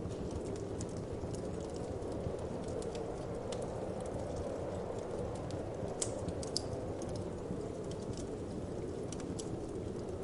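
Wood fire crackling, with irregular sharp pops and snaps over a steady low rush of winter wind.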